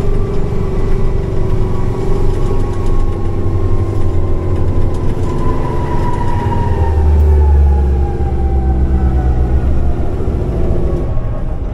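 Diesel engine of a military heavy equipment transporter (HET) truck running on the move. A whine falls slowly in pitch over the middle few seconds, and a deeper engine note swells about seven seconds in.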